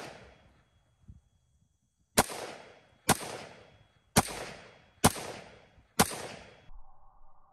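Colt 6920 semi-automatic AR-15 carbine in 5.56 mm firing five single shots, roughly one a second, each shot followed by a fading echo; one round per trigger press.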